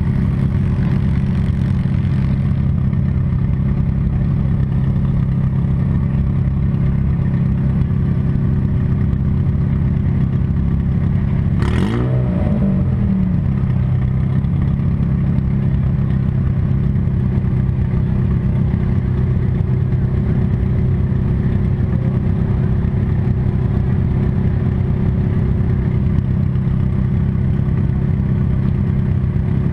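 Demolition derby car's engine running steadily at an even pitch, with one sharp impact about twelve seconds in, when the engine pitch briefly swings up and back down.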